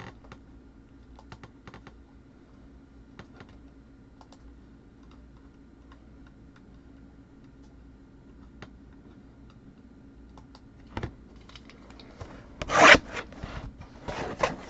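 Faint scattered clicks and rubbing from handling a sealed box of trading cards being opened, then a louder scratchy rip about 13 seconds in and more rustling near the end.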